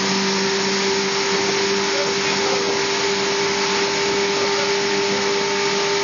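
Towing motorboat's engine running steadily at speed, a constant droning whine over the rush of wind and churning wake water.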